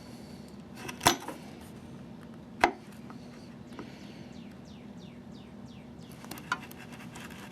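Two sharp knocks about a second and a half apart, with a few faint clicks near the end, over a steady low hum.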